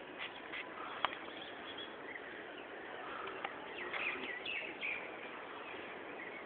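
Birds chirping with scattered short calls, busiest about four to five seconds in, over a steady background hiss, with a single sharp click about a second in.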